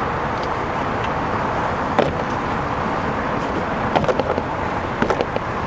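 Plastic door-panel trim cover of a 2006 Nissan Xterra being pried off by hand, its retaining clips giving sharp clicks and snaps about two seconds in and again in a quick cluster around four to five seconds in, over steady background noise.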